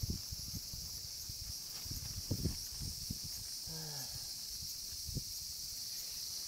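Steady high-pitched chorus of insects, with a few soft knocks and a brief low hum from a man's voice about four seconds in.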